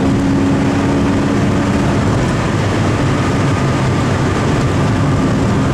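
Toyota Chaser's 1UZ-FE V8 running at steady high road speed, about 155 km/h, heard inside the cabin with tyre and wind noise. The engine drone holds an even pitch throughout.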